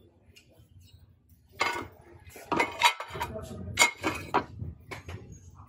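Glassware and ceramic dishes clinking and knocking together as they are handled, a run of sharp clinks with short ringing from about a second and a half in until near the end.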